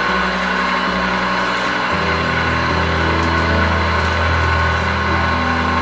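Electric pasta sheeter's motor and rollers running steadily as a sheet of egg-pasta dough is fed through. The drone turns deeper and fuller about two seconds in.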